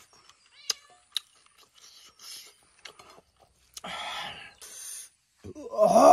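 Soft smacks and clicks of a man eating rice with his hand. Near the end comes a loud, drawn-out wailing cry from him, its pitch rising and then falling.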